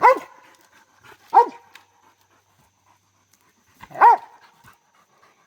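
A squirrel dog barking treed: three single barks spaced one to three seconds apart.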